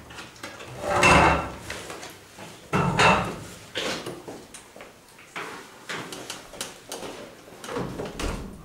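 People getting up and moving about. There are two loud scrapes, about one and three seconds in, then a string of light knocks and taps.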